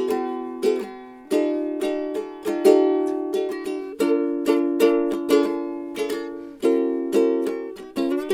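Intro music: a strummed ukulele or similar small plucked-string instrument playing a repeated chord pattern.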